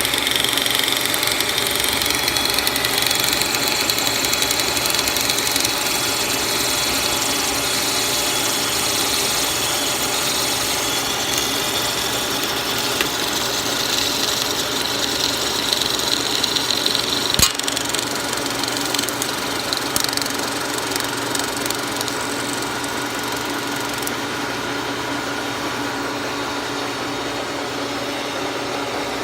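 1930s Brown & Sharpe 3A universal milling machine running steadily, its 8-inch plain milling cutter turning at about 50 RPM while the power table feed carries a Tyvar 88 plastic block through the cut at 6 inches per minute. A single sharp click comes about 17 seconds in.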